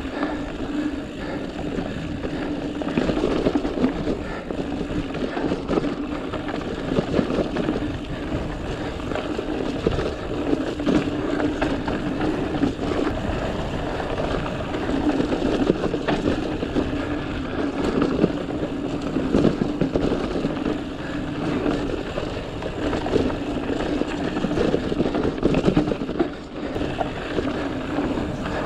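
Mountain bike riding over rough, rocky dirt singletrack: continuous tyre rumble and trail noise with frequent knocks and rattles from the bike over rocks and bumps, under a steady low drone.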